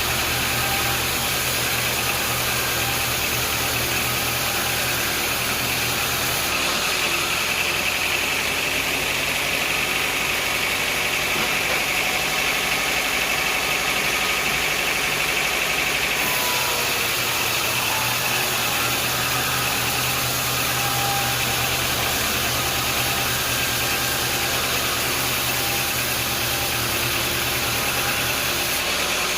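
Sawmill machinery running steadily: a motor hum with a high whine that grows stronger about a quarter of the way in and eases back about halfway through.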